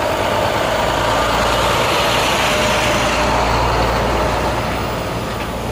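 A truck driving past close by, its engine rumble and tyre noise swelling to the loudest point in the middle and fading near the end.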